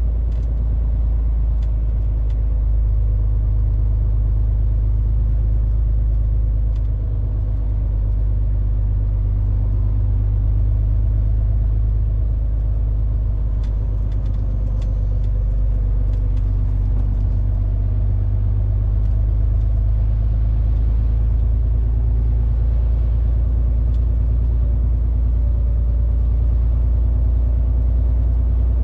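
MAN TGX 470 truck's diesel engine and road noise heard from inside the cab while driving at a steady pace, a deep, even drone.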